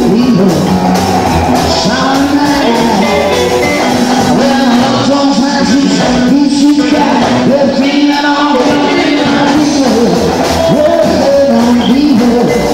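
Live rock and roll band playing: electric guitar, bass and drums at full volume.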